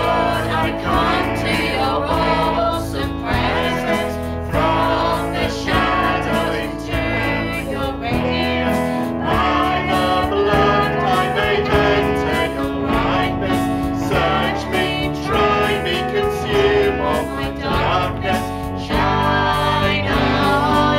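Christian worship song: voices singing a melody over instrumental accompaniment.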